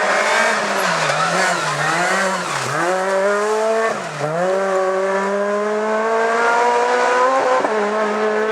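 Rally car engine revving hard, its pitch rising and falling with the throttle for the first few seconds and dropping sharply twice, as at gear changes. From about four seconds in it climbs in one long rising rev.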